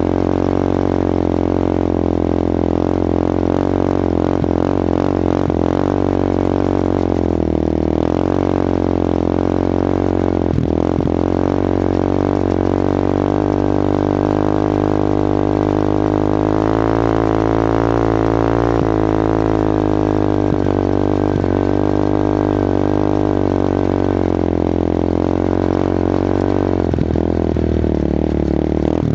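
Yamaha Warrior 350 ATV's single-cylinder four-stroke engine running under load while towing a snowboarder on a rope. Its pitch wavers up and down, climbing a little for a few seconds past the middle.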